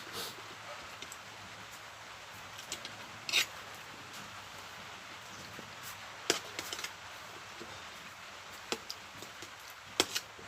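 Eating sounds from someone chewing grilled chicken feet: a few scattered sharp crunches and clicks over a steady low hiss.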